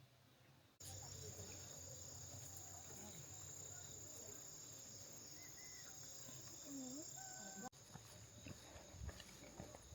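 Steady high-pitched chorus of insects that starts abruptly about a second in, with a few faint chirping calls over it. Near the end some light knocks and ticks join the insect chorus.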